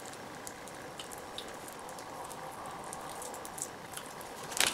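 Faint handling noises of black electrical tape being wound around a wiring harness: small scattered clicks and sticky rustles, with one sharper snap near the end.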